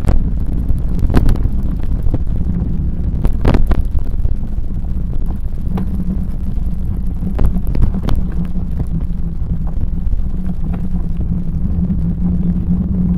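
Bicycle rolling along a park path: a steady low rumble of tyres on the path, with a hum and wind on the microphone, broken by several sharp knocks and rattles from the bike over bumps.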